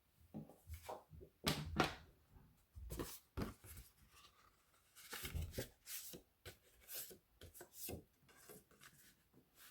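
Cardstock and crafting tools being handled on a work table: a string of light taps, knocks and paper rubbing and rustling.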